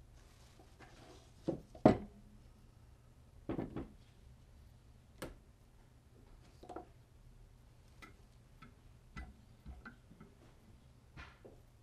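Irregular clicks and knocks of hone paddles and guide arms being handled on a Wicked Edge knife sharpener, as stones are swapped between sharpening stages. The loudest knock comes about two seconds in.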